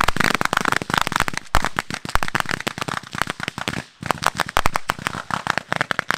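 Ground-level fireworks going off in rapid, dense volleys of crackling bangs, many per second. The volleys break off briefly about four seconds in, then start again.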